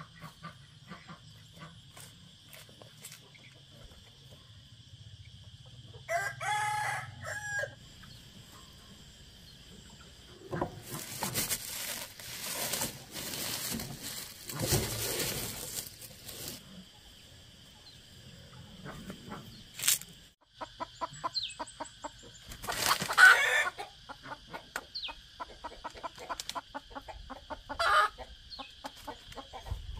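Chickens clucking, with a rooster crowing twice: once about six seconds in and again, the loudest sound, about two thirds of the way through. Between the crows there are several seconds of rustling noise.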